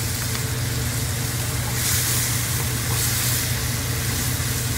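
Ground pork simmering and sizzling in sauce in a wok while diced potatoes are scraped in with a wooden spoon and stirred through, the hiss swelling briefly about two and three seconds in. A steady low hum runs underneath.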